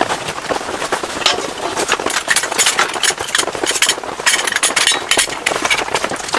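Rain falling on tent fabric: a dense, irregular crackle of drops.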